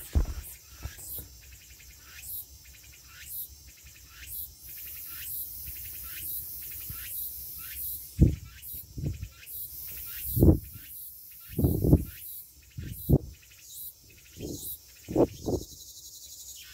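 Insects chirping: a short high chirp about once a second over a steady high insect hiss. From about halfway through, a run of low, dull thumps breaks in and is louder than the chirping.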